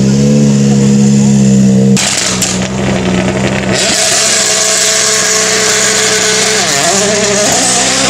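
Rally car engine running at a steady pitch. About two seconds in the sound changes abruptly to a noisier engine sound with steady tones and a short dip and rise in pitch near seven seconds.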